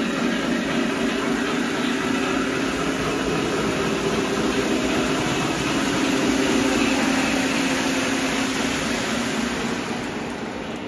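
Lionel Vision Line N&W Class A O gauge model steam locomotive and its passenger cars running at full speed around a tight O89 curve, a steady rolling rumble from the train on the track that swells a little and then eases near the end.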